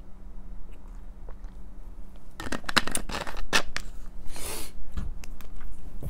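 Screw cap of a plastic drink bottle being twisted shut: a quick run of sharp clicks and scrapes about halfway through, followed by a short rush of noise and a soft thump.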